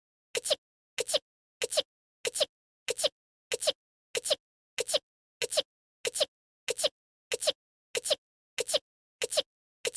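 An anime girl's small voiced sneeze, the same clip looped back to back about one and a half times a second, each a short lead-in then a sharp burst, with dead silence between repeats.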